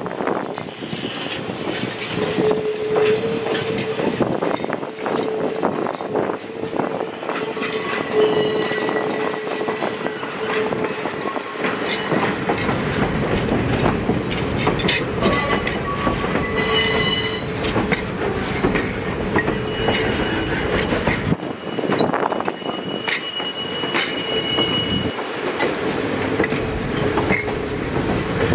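Passing train of vintage heavyweight passenger coaches at close range: steel wheels clicking over rail joints and rumbling on the track, with high-pitched wheel squeal that comes and goes.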